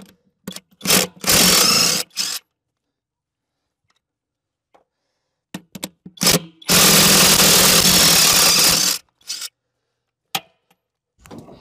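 A handheld power tool running in two bursts: a short one about a second in and a longer one of about two seconds in the middle. Each burst has a steady hum under a dense rattle, and a few short clicks come between them.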